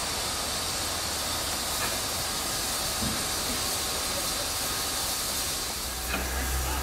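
Steady hiss of steam from a Harz narrow-gauge 2-10-2T steam tank locomotive, 99 7245, standing at a platform. A low rumble joins near the end.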